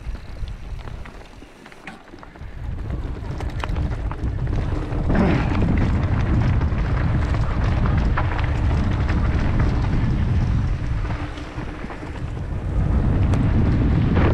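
Mountain bike riding down a bike-park trail: wind buffeting the microphone and a steady rumble of tyres on dirt, with many sharp rattles and knocks from bumps. It builds over the first few seconds as speed picks up, then stays loud.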